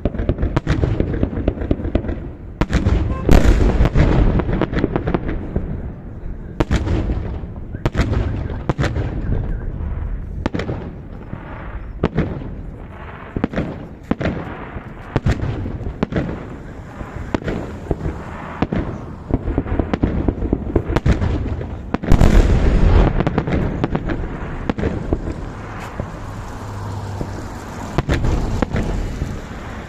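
Fireworks display: aerial shells bursting in an irregular run of sharp bangs with rumbling echoes, heaviest a few seconds in and again past the middle.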